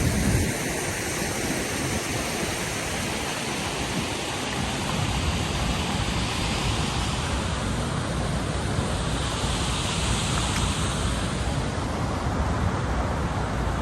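Steady rushing water of a waterfall, with wind buffeting the microphone as an uneven low rumble.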